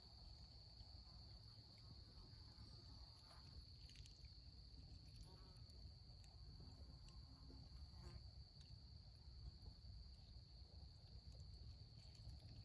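Faint, steady high-pitched insect chorus, with a few soft scattered ticks and rustles over low background noise.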